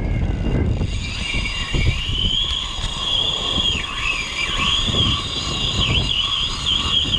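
Strong wind buffeting the microphone over breaking surf. About a second in, a high wavering whine starts and holds, rising and dipping in pitch, until just past the end.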